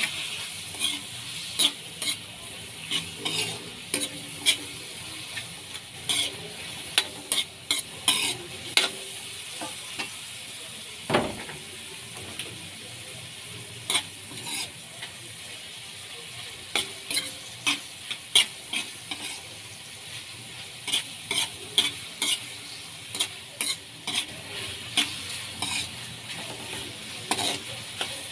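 Metal spatula scraping and clacking against a metal wok as sliced beef offal is stir-fried, over a steady sizzle of hot oil. The strokes come at an uneven pace, with one louder knock about eleven seconds in.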